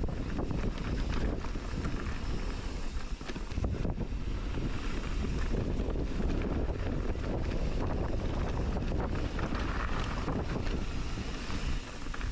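Wind rushing over the microphone of a camera riding along on a mountain bike going down a trail, with the bike rattling and knocking over rough ground throughout.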